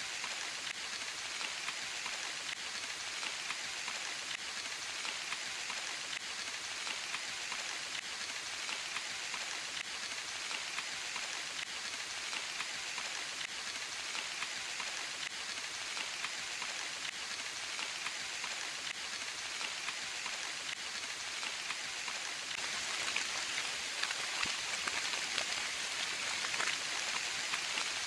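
Steady rain falling, a dense hiss of many drops with fine pattering, growing a little heavier for a few seconds near the end.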